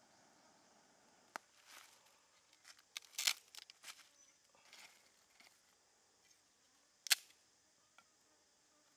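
Small charcoal-and-wood fire being tended by hand: a few sharp crackles and clicks, a cluster of them about three seconds in and a loud single one about seven seconds in. Under them runs a faint, steady, high insect drone.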